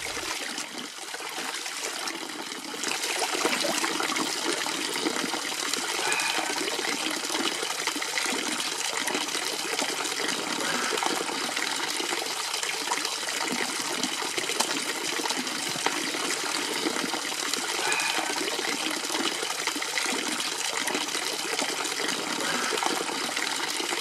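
Water from a village fountain's spout pouring steadily into a stone trough, a little louder from about three seconds in.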